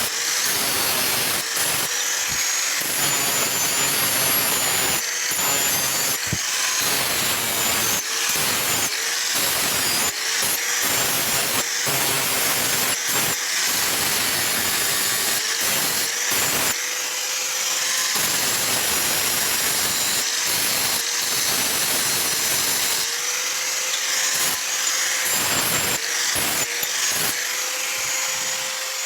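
Electric grinder running and grinding steel, with a steady motor whine that dips under load. The grinding hiss breaks off briefly again and again as the work is touched to and lifted from the wheel.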